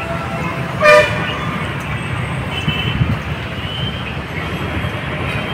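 Street traffic running steadily, with one short, loud vehicle horn toot about a second in and a couple of faint distant toots later.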